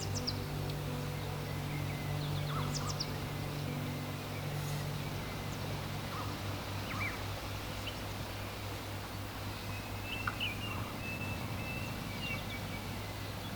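Outdoor ambience: birds calling briefly now and then over a steady low hum and hiss.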